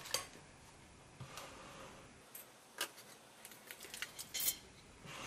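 Irregular light clicks and taps of small hard objects being handled, a dozen or so over the stretch, the sharpest just after the start, about three seconds in and around four and a half seconds.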